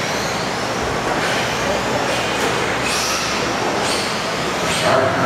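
Several 1/10-scale electric RC touring cars racing on a carpet track: the high whine of their electric motors rising and falling over and over as the cars accelerate and brake, over a steady rushing noise.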